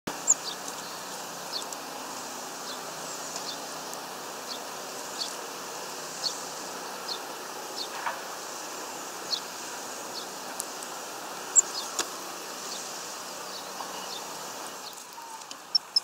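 Small songbirds giving short high-pitched chirps, scattered about once a second with two sharper, louder ones, over a steady hiss of background noise.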